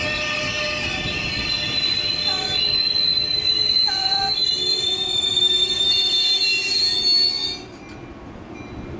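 NJ Transit Comet coaches' brakes squealing with several steady high-pitched tones as the slow train rolls into the station, over the low rumble of the cars. A couple of short lower squeaks come in the first half. The squeal cuts off suddenly about seven and a half seconds in, leaving a much quieter rumble.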